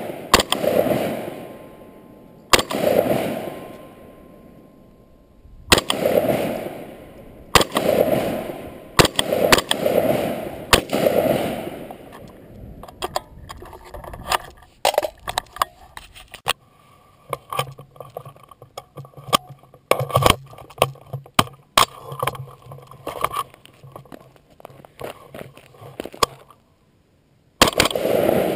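AR-15 rifle firing single shots a second or two apart, each sharp report trailing off in an echo. After about a dozen seconds the shots give way to a long stretch of rapid small clicks and knocks, and one more shot comes near the end after a brief break.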